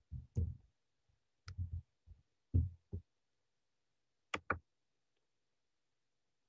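A few short, low thuds and knocks on a computer microphone, then a sharp double click about four and a half seconds in, with dead silence between them.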